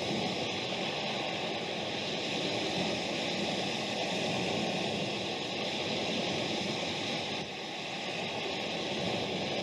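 Steady rushing noise with no rhythm or pitch, dipping slightly in loudness about three-quarters of the way through.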